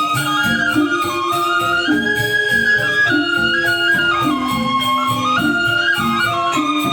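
Balinese gamelan angklung playing a four-tone piece: reong gong-chimes and bamboo grantangan keep a busy repeating pattern while a sustained high melody steps up and down.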